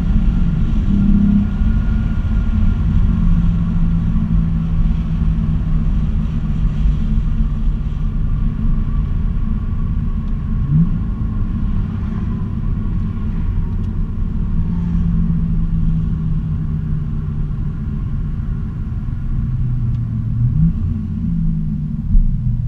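Acura TL SH-AWD's 3.7-litre V6, fitted with a Takeda short-ram intake and Magnaflow exhaust, cruising at a steady speed: a low exhaust drone mixed with road rumble, heard inside the cabin. The engine briefly rises in pitch about eleven seconds in and again near the end.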